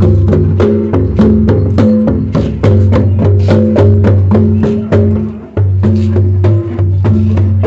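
Barrel-shaped hand drums with laced heads played in a fast, busy rhythm of about four to five strokes a second, with deep booming strokes among sharp slaps. The playing eases off for a moment about five and a half seconds in, then picks up again.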